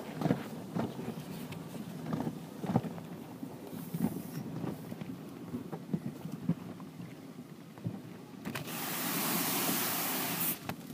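Automatic car wash heard from inside the car: water and foam splashing over the body and windows over a low rumble, with irregular thumps. About eight and a half seconds in, a loud hissing spray of water jets strikes the car for about two seconds, then cuts off.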